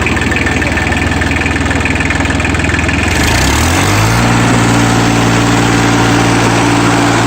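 Daedong tractor's diesel engine running steadily, then revving up about three seconds in and holding at a higher speed.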